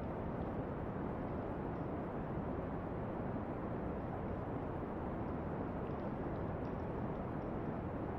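Steady brown noise, a deep, even hiss weighted to the low end, with a few faint campfire crackles, most of them about six to seven seconds in.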